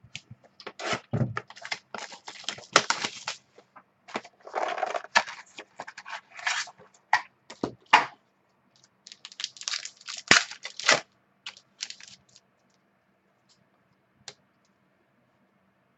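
A trading-card pack wrapper being torn open and crumpled, with cards handled. The crackling and rustling comes in quick clusters and stops about twelve seconds in, leaving only a couple of faint ticks.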